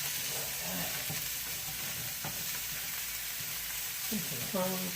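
Onion and butter sizzling in a hot Saladmaster skillet, stirred with a utensil that clicks against the pan a few times. A brief pitched sound comes near the end.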